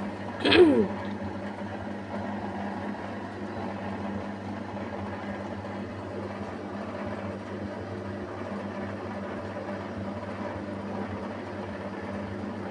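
Beko WMY81283LMB2 washing machine running with a steady low hum. A short sound falling in pitch comes about half a second in.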